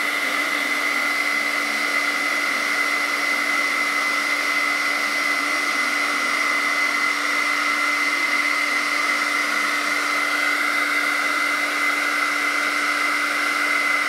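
Handheld hair dryer running steadily, blowing air at a fidget spinner to spin it: a constant rush of air with a steady high motor whine.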